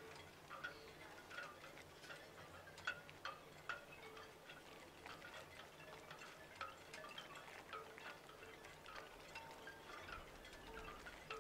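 Faint background music of soft, tinkling chime-like notes plinking at irregular intervals over a low held tone.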